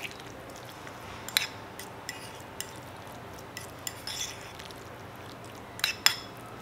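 A metal fork stirring mashed avocado in a bowl, with scattered light clinks of the fork against the bowl: a sharp one about a second and a half in and two close together near the end.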